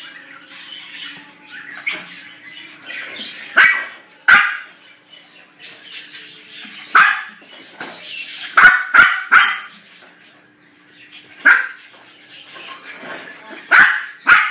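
A puppy barking: sharp, high-pitched yaps at irregular intervals, some coming in quick runs of two or three.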